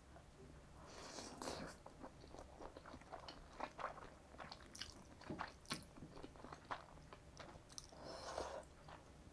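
Faint close-up eating sounds of saucy black-bean instant noodles (jjapagetti): a slurp about a second in and another near the end, with soft wet chewing clicks between.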